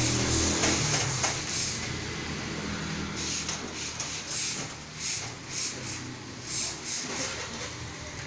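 Hose-fed steam irons hissing in short, irregular bursts as steam is let out onto the cloth.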